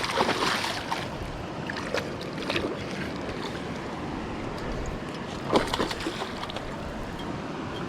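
Water splashing and sloshing over the steady rush of a flowing river, with three short bursts of splashing: one at the start, one about two seconds in, and one about five and a half seconds in.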